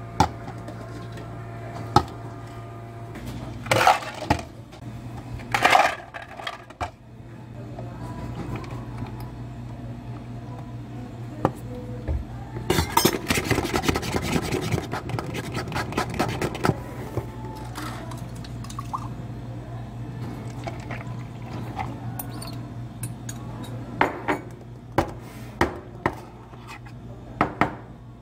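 Drink-making clatter at a cafe counter: ice clinking in plastic cups, with knocks of cups and a stainless steel pitcher. The clatter is thickest for a few seconds in the middle, over a steady low hum.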